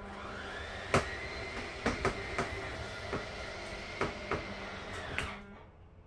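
RV slide-out motor running as slide room 5 of a Grand Design Solitude 390RK fifth wheel extends: a steady motor drone with a steady whine, and several knocks and creaks from the moving slide. It stops about five and a half seconds in.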